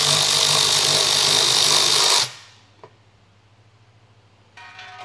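Cordless electric ratchet whirring as it spins out a Torx bolt on an automatic transmission's oil pan, stopping suddenly about two seconds in. Soft background music comes in near the end.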